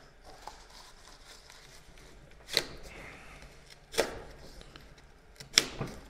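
Three sharp snaps about a second and a half apart, the last the loudest, as a folding knife blade pops through material in a cutting test.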